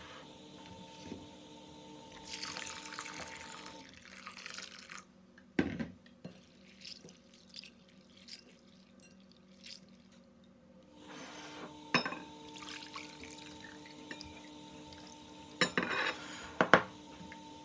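Water poured onto dried split peas in a glass bowl, then the peas swished and rubbed by hand in the water to rinse them, with glass bowls knocking sharply a few times, the clearest about 6 s, 12 s and 16 to 17 s in. Near the end the cloudy rinse water is tipped out into a second glass bowl.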